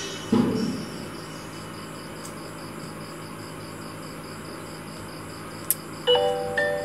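A steady hiss with a faint high pulsing about four or five times a second, opening with a short thump. Near the end, music of glockenspiel-like mallet notes begins.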